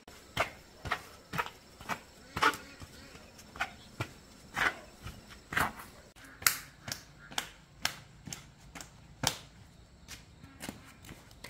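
A regular series of sharp knocks, about two a second, some much louder than others, like repeated strikes of a tool or steps on hard ground.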